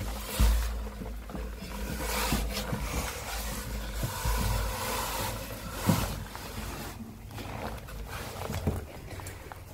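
Rumbling and rustling noise on a handheld phone microphone, rising and falling in gusts, with three sharp thumps: about half a second in, near six seconds and near nine seconds.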